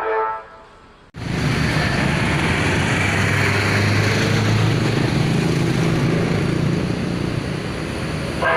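Music fades out in the first second. After a sudden cut, a bus's engine runs steadily with loud road and traffic noise, a low hum under a rushing sound, and no melodic horn tones.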